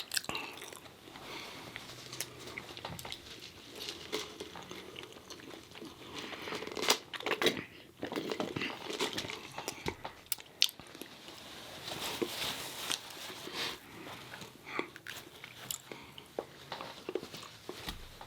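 Close-miked biting and chewing of a fried chicken-tender meal, with irregular crunches.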